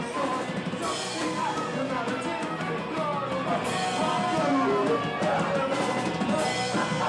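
Rock music with guitar and drum kit.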